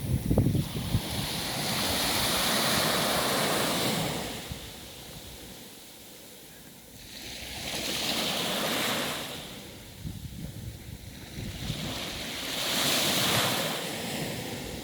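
Sea waves washing in on the shore: three swells of surf, about five seconds apart, each rising and fading away. A gust of wind rumbles on the microphone at the start.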